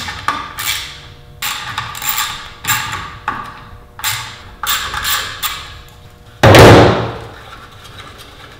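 Small hand ratchet undoing the nuts on the back cover of a car alternator: a run of short ratcheting rasps, with one longer, louder clatter about six and a half seconds in.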